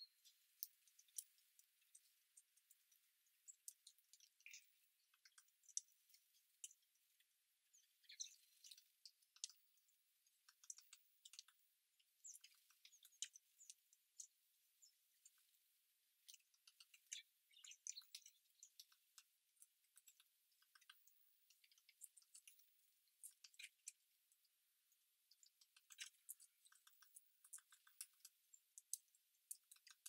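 Faint short chirps and chip calls of small garden birds at a feeder, scattered throughout, mixed with sharp clicks. Near the end comes a quick run of ticks.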